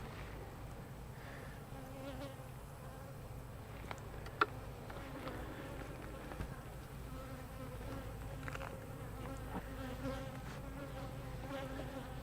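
Honey bees buzzing around an open hive: a steady, wavering hum of many bees. A single sharp click sounds about four seconds in.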